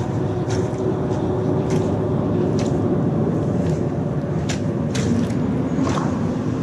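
Steady rumbling background noise, with light scuffs and taps every second or so from a person clambering down rocks, picked up close by a chest-mounted camera.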